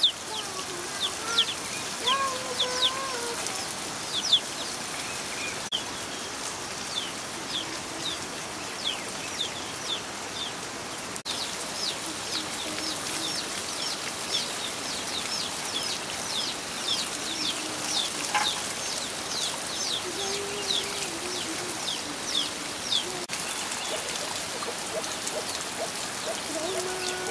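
Water pouring from a spout and splashing onto a stone slab and over leafy greens as they are rinsed by hand. Through it a bird calls again and again in short, high, falling chirps, about one or two a second.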